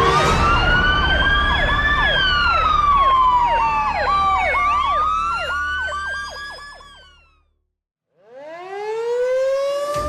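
Emergency vehicle sirens sounding together, a slow rising-and-falling wail over a rapid repeating yelp, with a low rumble underneath. They fade out about seven seconds in, and after a brief silence an outdoor warning siren begins winding up, its pitch climbing.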